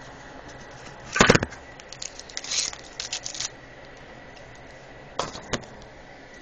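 A loud knock about a second in, then a run of small clicks and rustles, and two sharp clicks near the end: handling noise.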